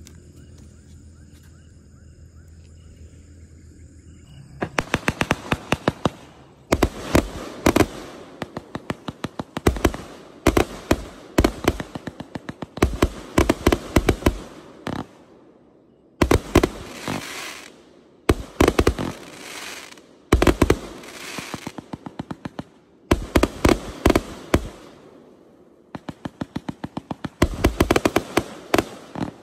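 A 1.2-inch, 168-shot Green Peacock celebration cake (SFML1682) firing. After a quiet start, rapid shots begin about four and a half seconds in, several a second, in runs of one to two seconds broken by short pauses.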